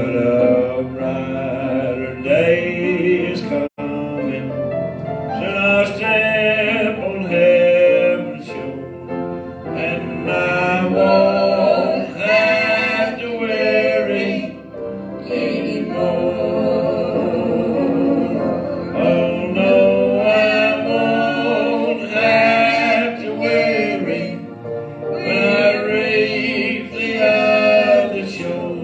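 A gospel song sung in church with piano accompaniment. The sound drops out for an instant about four seconds in.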